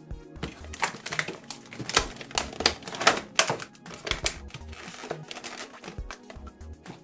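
Clear plastic blister packaging crackling and clicking as hands flex it and pull an action figure free, a rapid, irregular run of sharp clicks.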